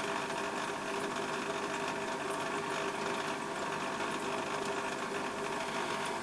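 Small electric motor running with a steady, even hum that cuts off suddenly at the end.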